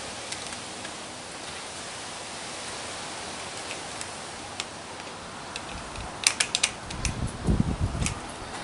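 Small metallic clicks and low knocks of pliers working the nut of a milling machine's speed potentiometer on its control panel, a few at first, then a cluster about six seconds in, over a steady hiss.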